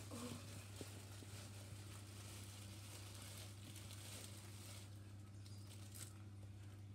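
Near silence: quiet room tone with a steady low hum.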